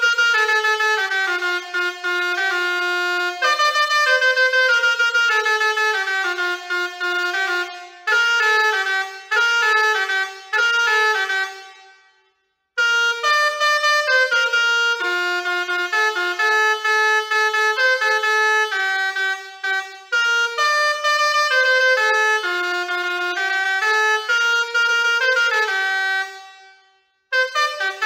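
Basuri 4.0 six-trumpet musical air horn playing programmed tunes as a quick run of horn notes. One tune ends about twelve seconds in, a second starts after a short gap and ends shortly before the end, and a third begins just after that.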